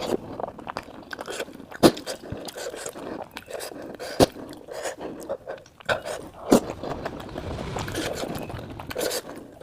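Close-up eating of jhol momos: chewing and slurping of soup-soaked dumplings, with three sharp clicks about two seconds apart.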